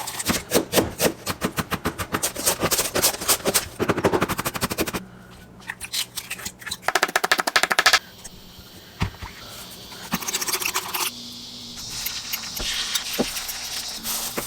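Kitchen food preparation: fast runs of sharp knocks for about the first half, with an even quicker burst of knocks around the middle, then a softer steady hiss.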